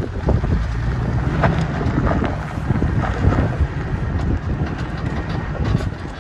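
Toyota Tacoma pickup crawling up a steep rocky trail: the engine runs with a steady low rumble while tyres crunch over loose rock and the truck knocks and rattles throughout, with some wind on the microphone.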